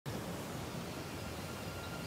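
Steady outdoor background noise with a low rumble, and a faint high held tone coming in a little past halfway.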